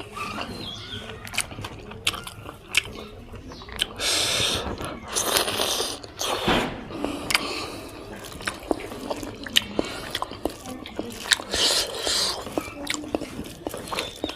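A person chewing and biting into spicy pork, with many sharp wet mouth clicks and a few longer hissing, slurping stretches.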